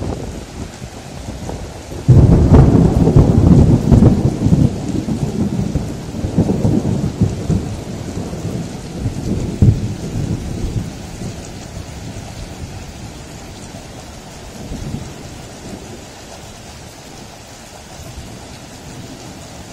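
A thunderclap breaks suddenly about two seconds in and rolls on in low rumbles for several seconds before dying away, over steady rain.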